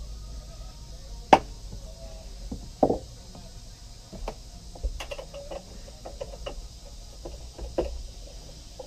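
Scattered knocks and clicks of hand tools and parts being handled in a Yamaha SVHO personal watercraft's engine bay as work begins on taking off the supercharger. The sharpest knock comes about a second in, with a few more spread through the rest.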